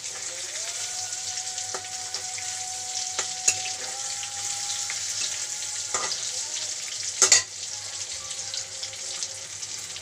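Pieces of cooked egg sizzling as they fry in hot oil in a karai, with a steady hiss. A spatula knocks and scrapes against the pan a few times, loudest about seven seconds in.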